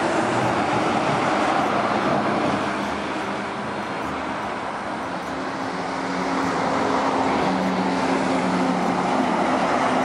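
Road traffic on a highway: tyre and engine noise from passing vehicles, easing a little partway through, then building again as a container truck's engine hum grows louder on approach and draws level near the end.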